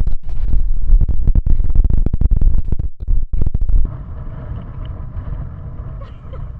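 Loud low rumbling and buffeting on the camera microphone, broken by rapid knocks and dropouts, for about four seconds; then it drops suddenly to a quieter steady hiss.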